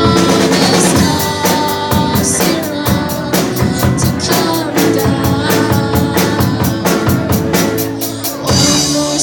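Rock band playing, the drum kit driving a fast, steady beat under held guitar chords. About eight and a half seconds in there is a loud hit, and the chords then ring on.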